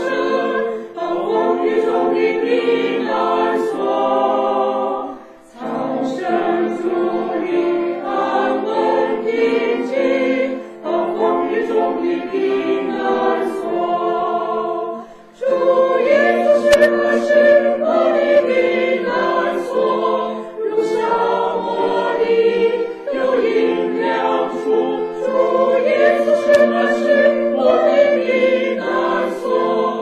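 Mixed church choir of men and women singing a hymn in Mandarin, in sung phrases with brief breaks for breath.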